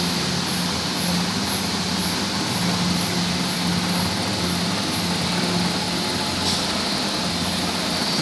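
Milling machine running steadily while resurfacing a cylinder head, with a low hum and a faint high tick about twice a second.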